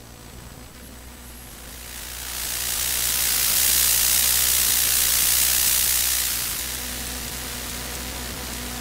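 Electromagnetic interference from an Asus laptop's electronics, picked up by a bare loudspeaker coil used as an inductive pickup: a steady low hum with a hiss that swells loud about two seconds in and falls back after about six and a half seconds, as the coil passes just above the touchpad where the CPU sits.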